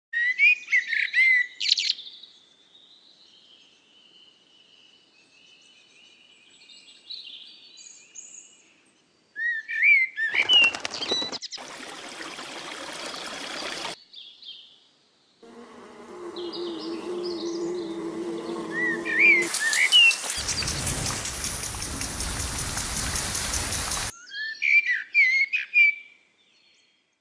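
A film soundtrack's sound effects: a short burst of quick, high, bird-like chirps that comes back four times, between stretches of loud rushing noise and a low steady hum.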